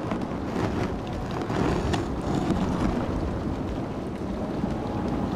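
Low, steady rumbling of the ground with faint cracking: a cartoon earthquake sound effect as the desert floor splits open.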